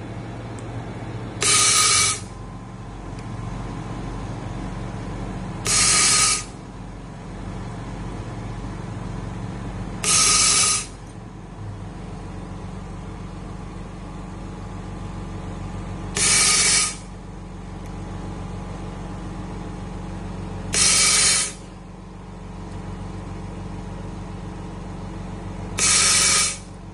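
Battery laser-welding machine working through a row of 33140 cells: six short, loud hissing bursts about half a second long, spaced roughly every four to six seconds, over a steady machine hum.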